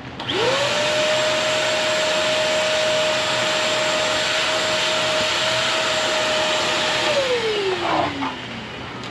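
Canister wet/dry shop vacuum switched on: the motor spins up within half a second to a steady high whine with a rush of air, runs about seven seconds, then is switched off and winds down in a falling whine. It is running on inverter power from a 24 V battery bank, drawing about 900 W, as a test of a new 220 V circuit.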